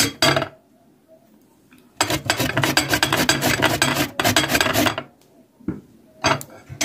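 Cucumber being grated on a metal box grater: fast rasping strokes. A short run comes right at the start, then a steady run of about three seconds, then two single strokes near the end.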